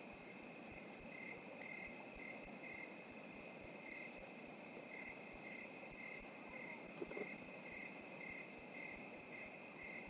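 Faint crickets at night: a steady high insect trill, with chirps repeating about twice a second. There is one brief soft sound about seven seconds in.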